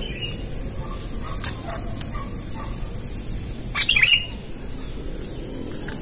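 Sooty-headed bulbul giving a few short chirping calls, the loudest a quick cluster of falling notes about four seconds in.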